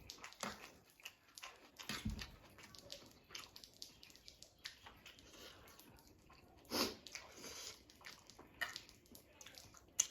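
Close-miked eating of spicy instant noodles: irregular wet chewing and slurping, with a louder mouth sound about seven seconds in.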